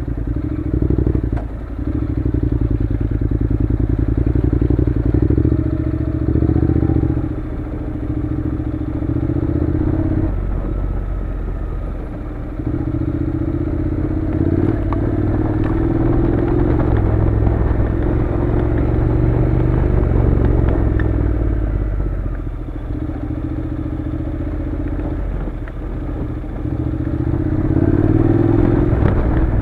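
Honda NC700's parallel-twin engine running as the bike is ridden along a rough dirt track, its revs rising and falling with the throttle, easing off briefly about a third of the way in and building again later, with occasional knocks and rattles from the bumpy ground.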